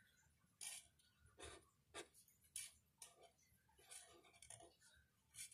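Near silence with faint, irregular ticks and light scratches of a marker stroking on paper, a few short strokes a second apart or less.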